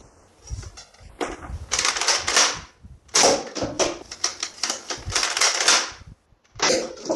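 Toy gun firing in rapid-fire bursts, a fast clattering rattle of many clicks a second. There is a short burst, then a longer one of nearly three seconds, and a brief one near the end.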